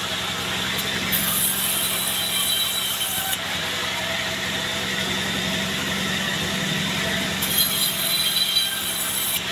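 Band sawmill running and cutting through a bayur log: a steady sawing noise over a constant hum.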